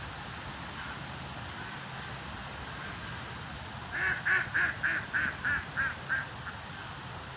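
A bird giving a quick run of about nine short calls, fading as it goes, over a steady background hiss and low hum.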